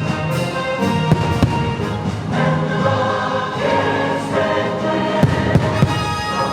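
Orchestral and choral fireworks-show music, with firework bangs now and then and several close together near the end.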